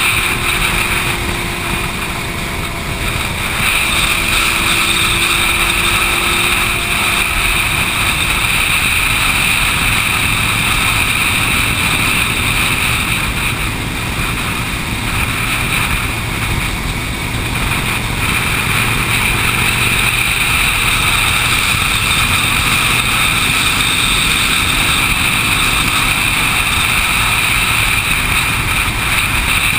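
Group of motorcycles cruising at highway speed: steady engine drone mixed with wind and road rush. A faint steady engine tone from a nearby bike fades out about seven seconds in.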